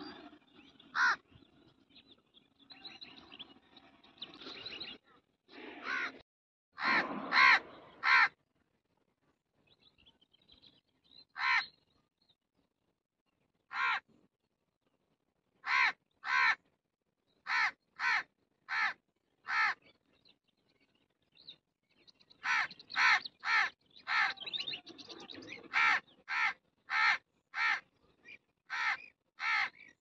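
Crows cawing: a long series of short caws, scattered at first, then coming in steady runs of about one or two a second, with a quiet spell around ten seconds in.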